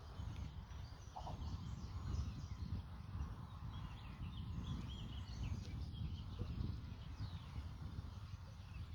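Wind buffeting the microphone in a low, gusting rumble, with small birds chirping repeatedly in the background.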